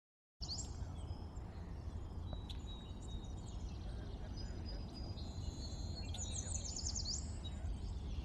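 Small birds chirping and whistling over a steady low background rumble, after a short silence at the very start; a quick run of high sweeping chirps comes near the end.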